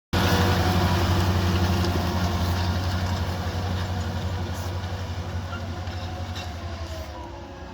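John Deere 7280R tractor's six-cylinder diesel engine running, a steady low drone that fades gradually as the tractor moves away.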